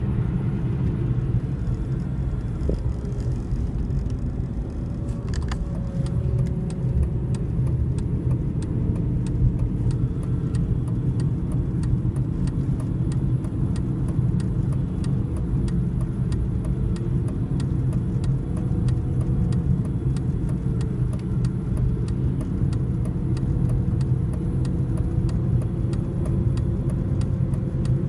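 Steady low rumble of a car's engine and tyres on the road, heard from inside the cabin while driving along a highway.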